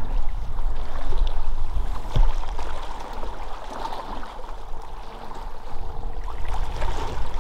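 Sea water lapping and gurgling against shoreline rocks, with a steady low rumble of wind on the microphone.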